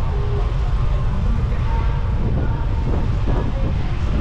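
Steady low rumble of wind buffeting the microphone on a moving bicycle, mixed with street traffic noise.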